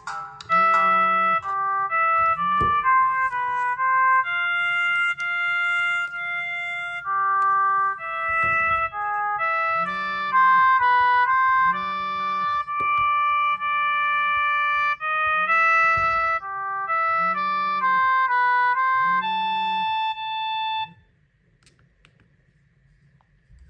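A phone ringtone: an electronic melody of held notes over a low note repeating about every second and a half, cutting off about 21 seconds in.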